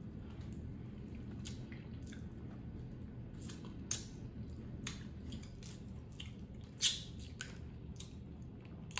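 Close-up eating sounds: scattered wet clicks and squishes of hands pulling shrimp and snow crab meat from the shell, and of chewing, over a steady low hum.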